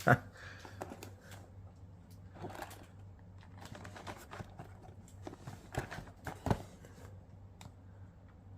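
Scattered taps, scrapes and rustles of a cardboard card booster box being turned over and worked open by hand. There is a sharp knock right at the start and a couple of louder knocks around six seconds in.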